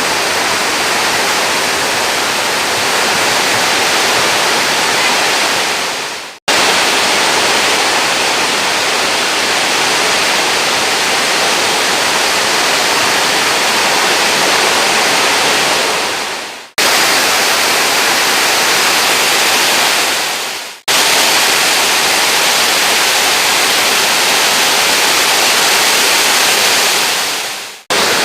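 Heavy rain pouring down in a steady loud hiss, dipping out briefly four times where the footage cuts.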